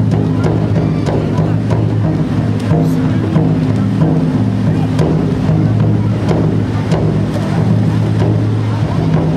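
Handheld tezutsu firework tubes spraying with a steady rushing roar and scattered crackles. Background music with held low notes that change pitch every second or two runs over it.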